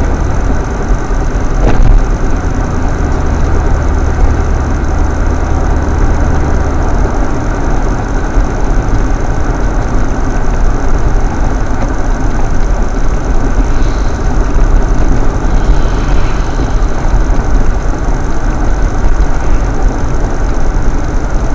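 Steady road and engine noise inside a moving car's cabin, a dense low rumble with a rattly, grainy texture, picked up by a dash cam.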